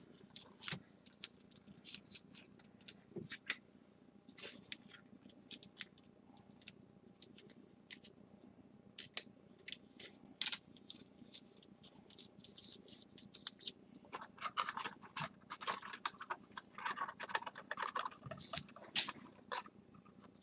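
Faint scattered clicks and taps, with a spell of rustling late on: trading cards and their plastic holders being handled off-camera.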